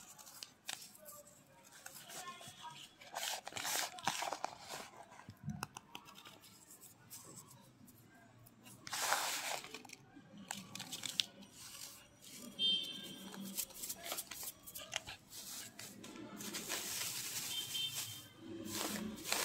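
A hand squeezing and crumbling kerosene-damp naphthalene powder in a plastic bowl: irregular gritty crunching and rustling, with louder scrunches about nine seconds in and a plastic sheet crinkling near the end.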